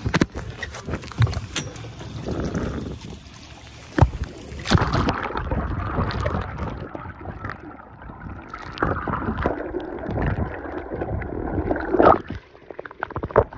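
Sounds aboard a small fishing boat at sea: water and wind noise with scattered clicks and knocks, and a few sharp loud thumps, about four seconds in, again a second later, and near the end.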